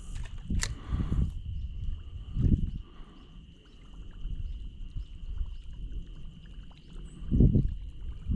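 Outdoor creekside ambience: a steady high-pitched trill from a calling animal runs underneath. Several dull low thumps and rumbles come about half a second in, around two and a half seconds, and near the end.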